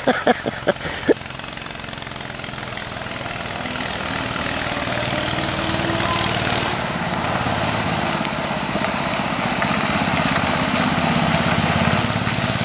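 Small petrol engine of a ride-on vehicle running steadily, growing gradually louder as it approaches.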